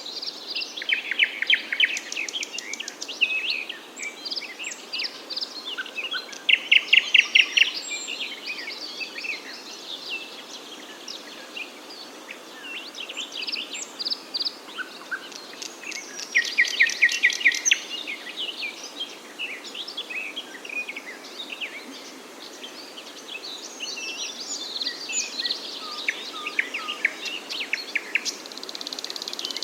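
Several birds chirping and singing in overlapping short calls, with two loud rapid trills: one about a quarter of the way in and one past the middle. A steady low background noise runs underneath.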